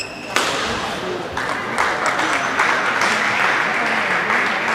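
Spectators in a sports hall applauding and cheering as a badminton rally ends, coming in suddenly just after a single sharp hit and growing louder about a second and a half in.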